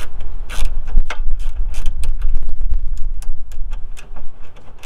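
Irregular clicks and knocks of metal headlight mounting bolts and hand tools being handled, over a steady low rumble.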